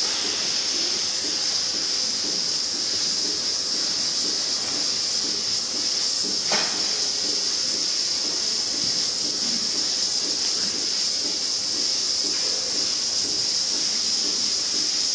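Steady high hiss over a low, uneven mechanical rumble from a Lely manure robot driving slowly across a rubber-covered slatted floor, with one sharp knock about six and a half seconds in.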